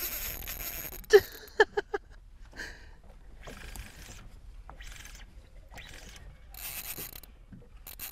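Spinning reel's drag giving line in short bursts as a hooked fish pulls against the bent rod, with a quick cluster of loud sharp sounds about a second in.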